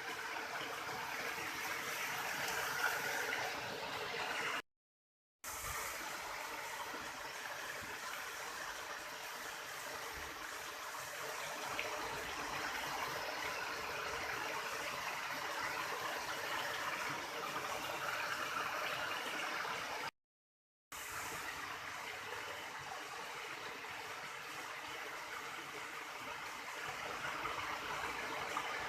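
River water flowing and splashing steadily, broken twice by brief gaps of silence.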